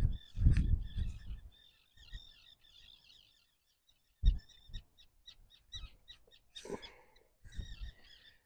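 Small birds chirping and trilling in repeated short phrases, over a few low dull bumps of wind or handling on the microphone, loudest in the first second and once sharply about four seconds in.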